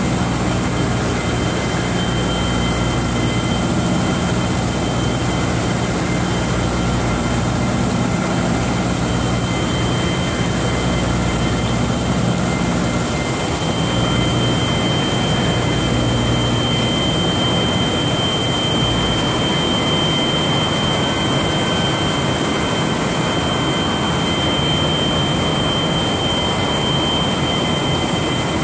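Skoda W 200 HB CNC ram-type floor borer milling a metal block: loud, steady cutting noise with a thin high whine, over a low machine hum that fades out about halfway through.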